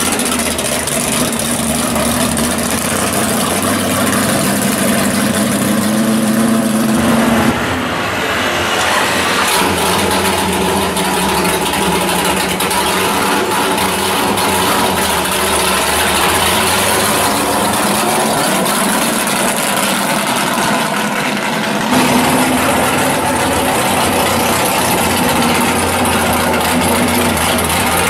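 Drag-race cars' engines idling loudly as they roll past one after another, with no speech. The engine sound changes abruptly about a quarter of the way in and again near the end, as one car gives way to the next.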